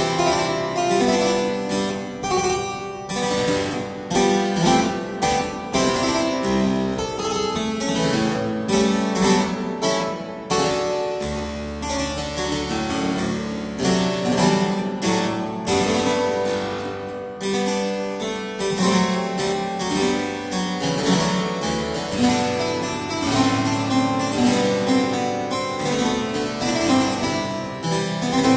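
Solo harpsichord playing, on a Joannes Daniel Dulcken harpsichord built in 1747: a continuous stream of quick plucked notes over a low bass line.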